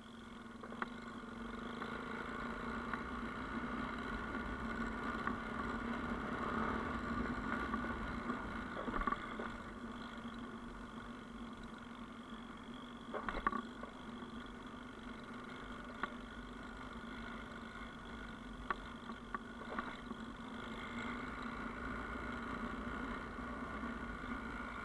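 Yamaha Ténéré motorcycle engine running at a fairly steady pace while riding, with a few sharp clicks and knocks, the loudest about thirteen seconds in.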